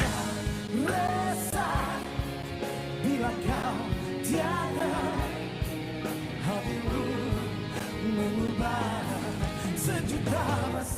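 Pop-rock song played by a full band, with a man singing in a heavy, rock-style voice.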